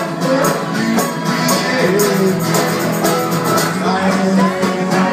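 A live acoustic string band playing: a singer over strummed guitar, mandolin, upright bass and accordion, with a steady beat.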